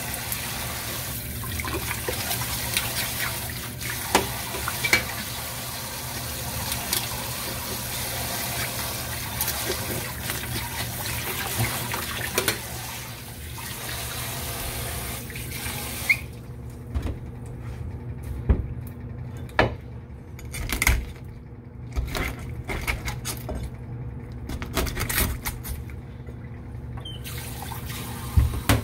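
Tap water running into a sink, with scattered knocks and clatters on top. A little past halfway the water shuts off, leaving separate knocks and clatters, and it runs again near the end.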